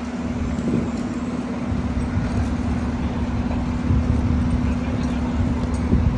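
Fire engine idling steadily: a constant low engine hum and rumble.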